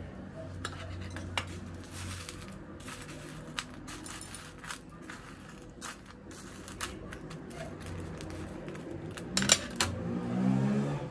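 Dry, uncooked instant ramen noodles crackling and rustling as hands press a chicken tender into them, with scattered sharp little clicks and a louder burst of crunching about nine and a half seconds in. A faint low hum runs underneath.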